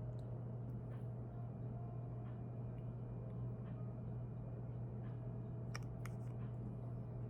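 Steady low hum of room tone, with a few faint clicks about six seconds in.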